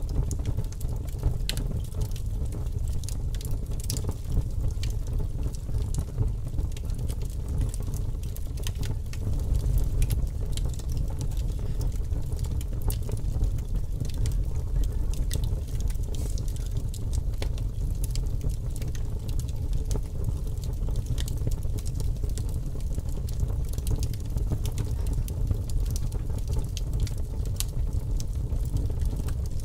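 Wood fire crackling: frequent small pops and snaps scattered over a steady low rumble.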